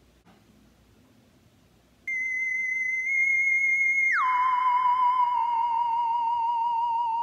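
Electronic sound effect: a steady high tone cuts in suddenly about two seconds in, then slides down to a lower, slightly wavering tone about four seconds in and holds there.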